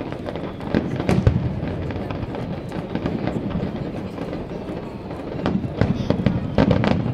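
Aerial fireworks shells bursting in a display: a few sharp bangs about a second in, then several more in quick succession over the last two seconds, with a continuous rumble between them.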